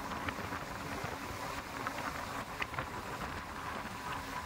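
Steady road and wind noise with a low rumble from a truck cruising at expressway speed, heard from inside the cab.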